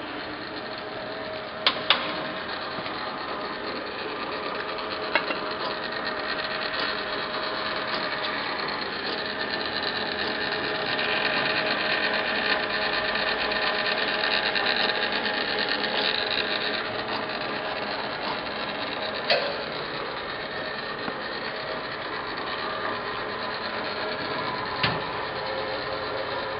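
Hardinge HLVH toolroom lathe with its 1.5-horsepower motor running under power: a steady mechanical hum with several steady tones, a little louder in the middle. A few sharp clicks stand out over it.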